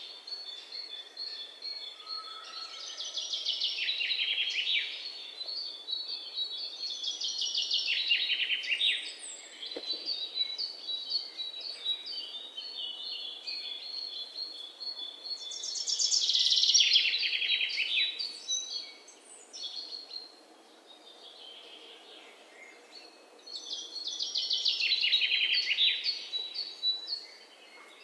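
Songbirds singing: a phrase of rapid, high notes comes back every few seconds, with thinner chirps in between.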